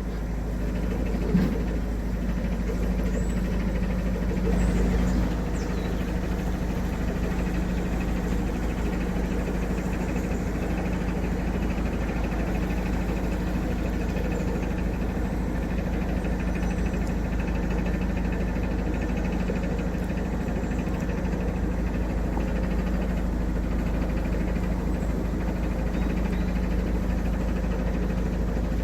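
Narrowboat engine running steadily at low revs while the boat cruises slowly.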